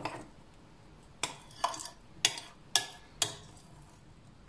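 A metal spoon clinking against a glass mixing bowl as cocoa batter is stirred: about five light, sharp clinks roughly half a second apart, starting about a second in.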